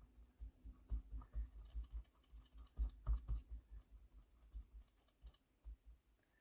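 Versamark embossing ink pad dabbed repeatedly onto a rubber stamp: quick, light, irregular taps, several a second, thinning out near the end.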